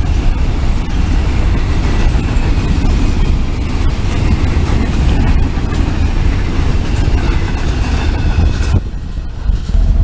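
Freight train of empty boxcars rolling past close by: a steady rumble of steel wheels on rail with scattered clanks and a faint high ringing. The sound cuts away near the end.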